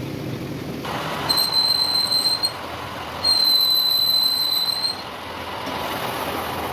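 Boring tool cutting a metal washer spinning in a lathe, squealing twice at one steady high pitch: first for about a second starting about a second in, then for about a second and a half, over the lathe's steady running.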